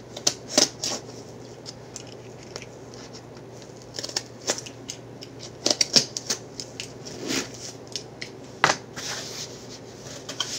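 Hands handling and opening packaging: irregular crinkles, rustles and sharp clicks, loudest about half a second in, around six seconds and near nine seconds.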